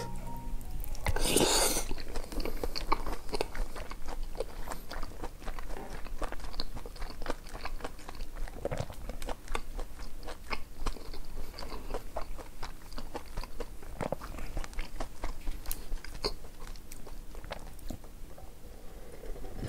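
Close-miked eating: chewing and crunching food with many small wet mouth clicks, with a louder burst of noise about a second in.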